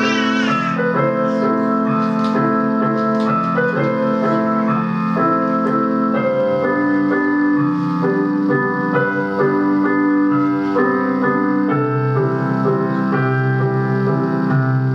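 Instrumental passage of a song: keyboard accompaniment playing sustained chords and melody notes between sung lines. A singer's held note with vibrato dies away just after the start.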